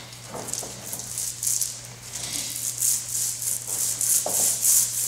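Rhythmic swishing of adhesive being brushed onto a Clock Spring composite repair coil as it is wrapped onto the pipe, quick strokes about three a second, busier in the second half, over a steady low hum.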